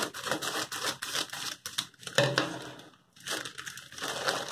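Scissors snipping through a plastic courier mailer, then the thin plastic crinkling and rustling as it is pulled open by hand.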